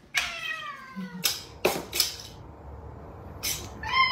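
A tabby cat gives a long meow that falls in pitch, followed by a few sharp clicks. Near the end a second cat lets out a loud, falling meow.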